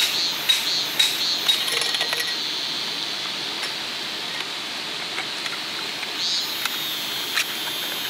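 Hammer striking a metal parasol ground stake wedged among creek stones, about two ringing metallic blows a second, stopping about two seconds in. The steady rush of the shallow creek runs underneath.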